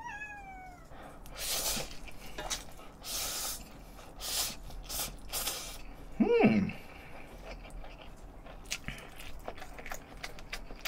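A black-and-white cat meows once, the call falling in pitch. After it come short bursts of slurping and eating noise, and a brief rising-and-falling vocal sound about six seconds in.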